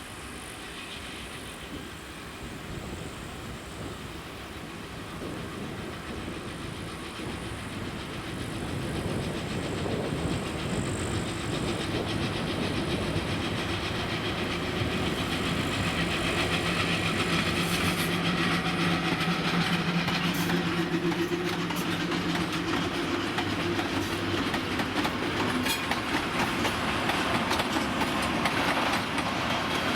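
A freight train hauled by a VL10U electric locomotive with a 2TE116U diesel locomotive approaches, getting steadily louder, with a steady locomotive hum about halfway through. Then the wagons roll past with rapid clicking of wheels over rail joints.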